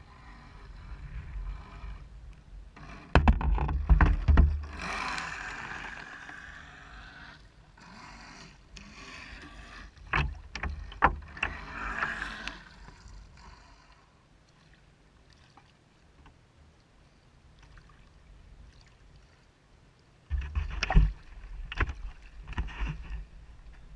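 Water splashing and slapping against an RC speedboat's hull, picked up by a camera on its bow, with loud buffeting thumps about three seconds in and again around ten seconds in. It goes quieter for a while, then a burst of knocks and clicks near the end as the boat is taken in hand.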